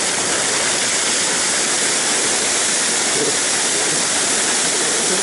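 Water gushing in a steady rush from the open outlet of a fish-transport tank on a pickup's bed, splashing into shallow river water as the rescued trout are released.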